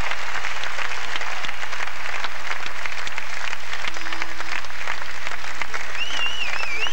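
Theatre audience applauding steadily. A wavering high tone comes in near the end.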